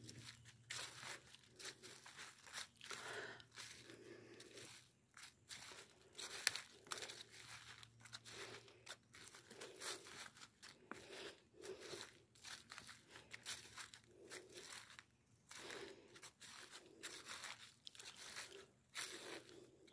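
Footsteps crunching through dry fallen leaves at a steady walking pace, about one step a second, with one louder crack about six and a half seconds in.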